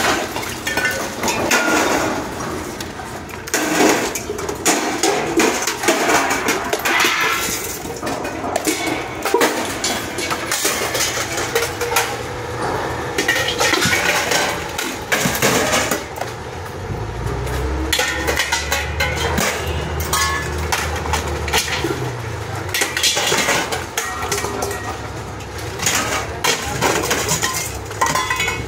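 Repeated metal clanking and clinking, many short knocks one after another. A low engine hum joins in for a few seconds past the middle.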